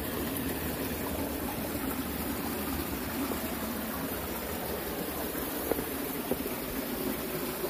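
Shallow creek water running and trickling steadily over rock ledges and stones.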